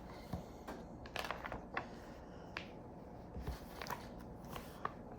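Quiet room tone with a scattering of faint, irregular clicks and small handling sounds.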